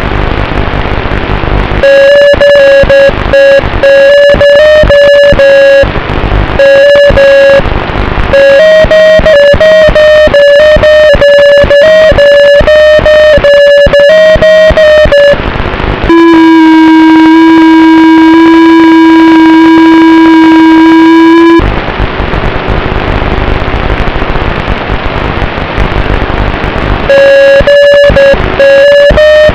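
Drone motor whine heard through an analog FPV video link's audio: a loud, steady high whine, wavering slightly in pitch and chopped by rapid dropouts, that breaks up into static hiss twice. Around the middle the whine drops to a lower steady tone for about five seconds before static returns, and the high whine comes back near the end.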